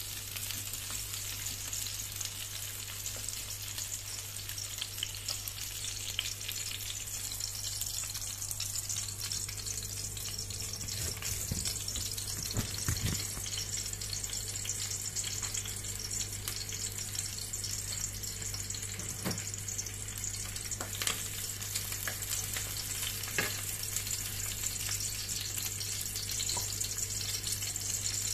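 Sliced onions and chopped garlic sizzling in hot oil in a pan, stirred with a wooden spoon that knocks against the pan a few times. A steady low hum runs underneath.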